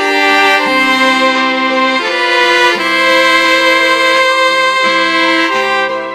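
Roland Aerophone digital wind instrument in a two-part duet: a soprano and an alto part, recorded separately and layered. They play a slow melody in held notes that change about once a second.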